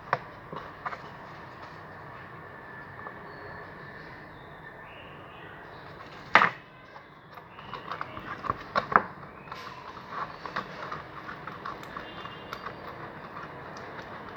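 Homemade borax slime being mixed and kneaded by hand as it sets: sticky clicks and squelches, with one sharp loud one about six seconds in and a quicker run of clicks in the second half.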